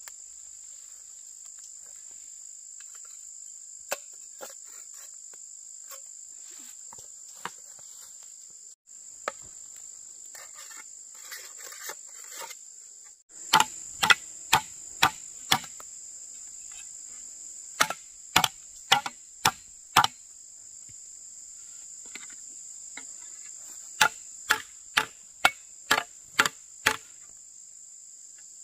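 Steady high-pitched insect chorus. From about halfway through come runs of sharp blows, five or six at a time at about two a second, of the kind made by chopping or hammering on wood.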